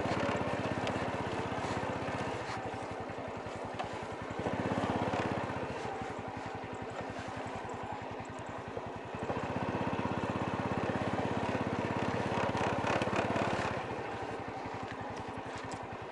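Honda Wave Alpha underbone motorbike's small single-cylinder four-stroke engine running as it is ridden slowly along a bumpy field track. The engine note rises and falls with the throttle, louder twice: about four seconds in and again from about nine seconds.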